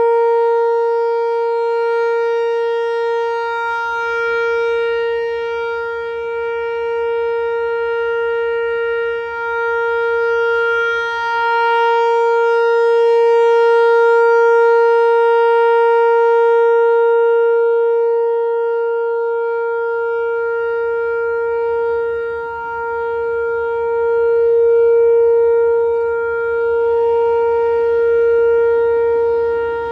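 Whelen Vortex electronic outdoor warning siren sounding a steady tone during its monthly test, its pitch held level while its loudness rises and falls slowly.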